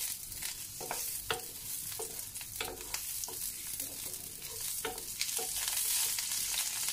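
Sliced onion frying in hot oil in a nonstick pan, sizzling steadily. A wooden spatula stirs it, making irregular scrapes and taps against the pan. The sizzle grows louder in the second half.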